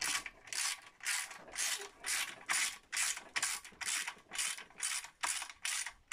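Hand ratchet clicking in quick back-and-forth strokes, about three a second, drawing up the fasteners of a suspension arm snug but not fully tight.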